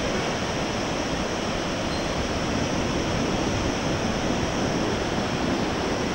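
Steady rushing of whitewater river rapids, an even noise that doesn't change.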